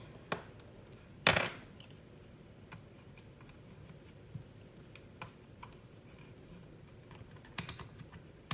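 Scattered sharp clicks and knocks of handling a multimeter, its test leads and a capacitor on a bench. The loudest click comes about a second in, with a small group of clicks near the end and faint ticks in between.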